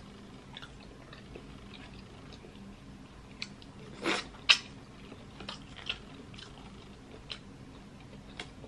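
Close-up eating sounds of sauce-coated crawfish: wet mouth smacks and scattered short clicks, the loudest pair about four seconds in.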